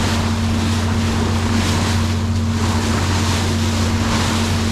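Nordhavn 50 trawler underway at sea: the steady low drone of its diesel engine, with wind and rushing water over it that swell and ease every second or so.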